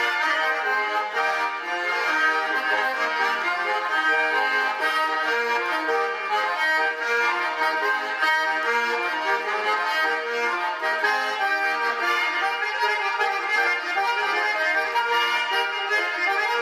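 Russian garmon, a button accordion, playing a traditional village dance tune (naigrysh): a quick, unbroken run of melody over several notes sounding at once.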